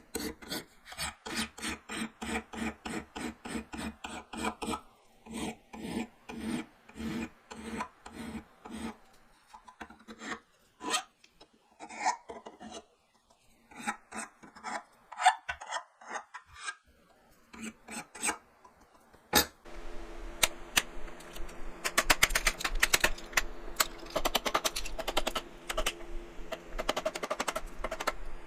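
Sped-up footage of a power saw making many repeated shallow cuts, one after another, in a 2x6 to waste out a notch without a dado blade. Short cutting bursts come about two a second. About two-thirds of the way through there is a sharp click, then a denser continuous cutting sound with rapid crackling.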